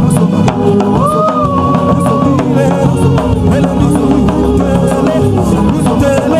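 Loud gospel praise music from a live band with drum kit and bass, under a voice singing long held, gliding notes.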